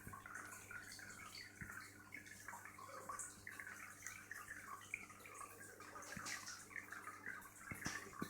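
Faint trickling and bubbling of aquarium water, many small bubbly drips, over a steady low hum.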